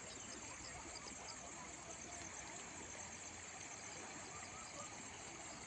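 Insects chirping in a fast, regular pulse over the faint, steady rush of a flooded river.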